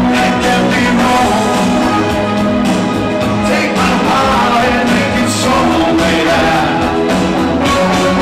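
A male singer singing into a microphone over band or backing-track music with a steady beat.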